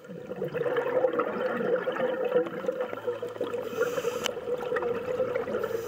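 Underwater gurgling and bubbling water noise picked up by a dive camera beneath the sea, over a steady hum.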